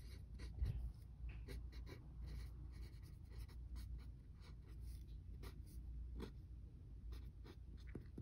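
Pencil writing on a sketchbook page: a faint run of short, quick scratching strokes of handwriting.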